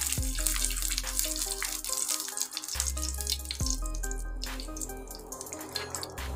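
Background music with a steady melody and bass line over the hissing sizzle of ghee melting on a hot tawa. A metal spoon clicks against the pan a few times near the middle.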